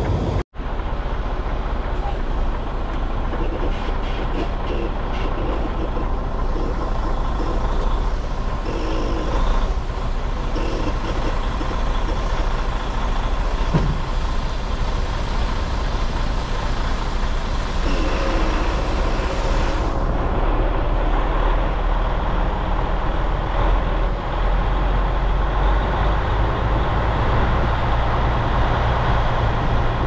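Semi-truck's diesel engine running steadily at low speed, with tyre noise on slushy, snowy pavement, heard from inside the cab. The sound drops out for a moment about half a second in.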